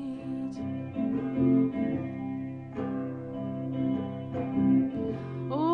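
Guitar strumming chords in the instrumental break of a folk song, a new chord struck about every second. A woman's singing voice comes back in at the very end.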